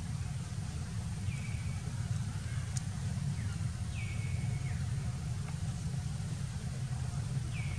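Outdoor background with a steady low rumble. Three short, high animal calls come a few seconds apart; each drops in pitch, then levels off briefly.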